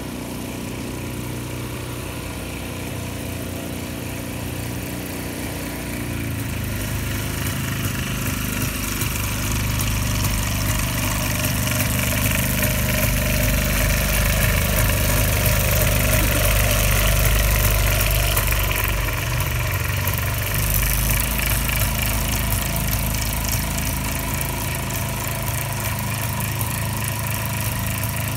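Excalibur light-sport aircraft's engine and pusher propeller running at low taxi power as the plane rolls past. The steady drone grows louder through the middle as it draws near, then fades a little as it moves away.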